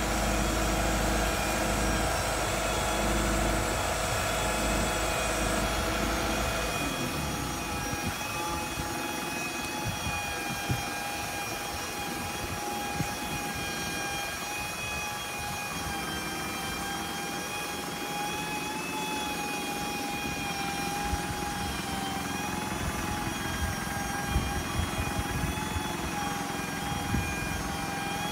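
Hydraulic system of an Aichi SH09A truck-mounted aerial lift working the boom down to its stowed position, driven by the idling 4M50 diesel of the Mitsubishi Canter: a steady high whine over the engine. The low engine rumble drops away about six and a half seconds in.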